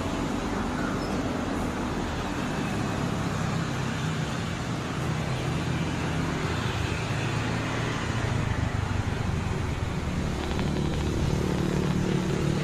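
Steady drone of a Lockheed C-130 Hercules's turboprop engines and propellers, a constant noise over a low hum of a few steady tones.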